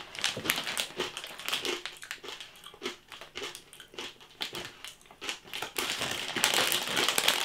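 Crinkling and rustling of a plastic snack bag of pork scratchings being handled, in scattered sharp crackles. About six seconds in it turns denser and louder as a hand rummages down into the bag.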